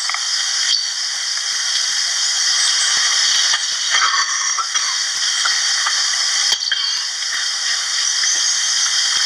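Steady hiss of recording noise, with a few faint clicks scattered through it.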